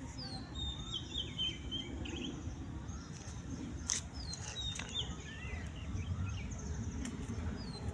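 Wild birds singing: a quick falling series of chirps repeats about every four seconds, with other scattered chirps and whistles between, over a steady low rumble.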